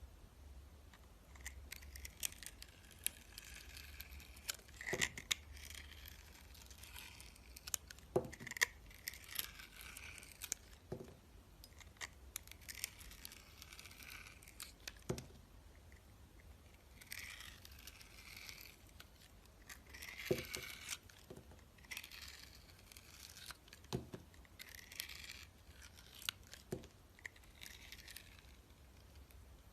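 Dry bars of soap being chopped with a knife: crisp scraping and crackling as the blade goes through, with a sharp knock every few seconds.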